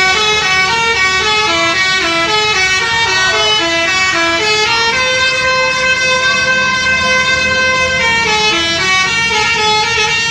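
Bus telolet horn playing a melody on several tones at once: a quick run of stepped notes, a long held chord in the middle, then more quick notes near the end.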